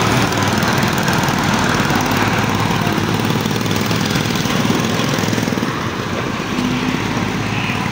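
Street engine noise running steadily: a diesel Volvo coach pulling away and the small engines of motorcycle tricycles close by, easing a little after about six seconds.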